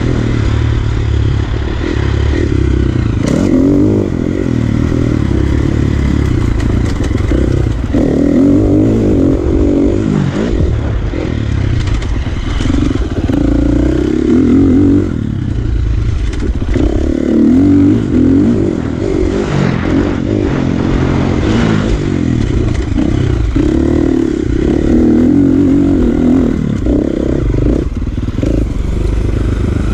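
Small dirt bike engine running and being revved, its pitch rising and falling several times over a heavy low rumble.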